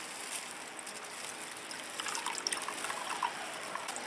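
Water pouring in a thin trickle from a corner of a plastic bag into plastic cups, with a few small clicks and splashes from about two seconds in.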